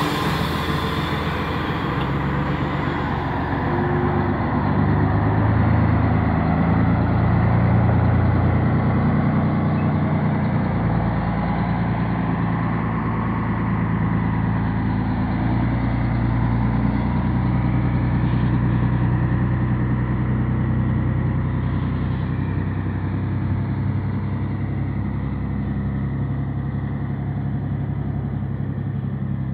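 Scania 113's six-cylinder diesel engine running under load as the truck pulls a loaded grain trailer away at low speed, its note rising and falling slightly. A hiss of air fades out near the start.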